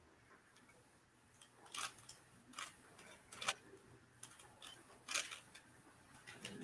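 Rubik's cube being turned by hand: faint, irregular sharp clicks of its layers, a handful over a few seconds.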